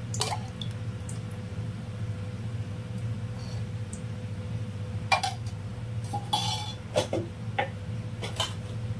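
Metal ladle clinking and scraping against the kadai and the oil container a few times in the second half as cooking oil is ladled into the pan, over a steady low hum.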